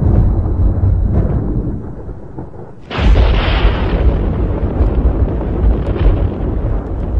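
Cinematic boom sound effect for a logo reveal: a deep rumble fades, then a sudden explosion-like boom hits about three seconds in and rumbles on after it.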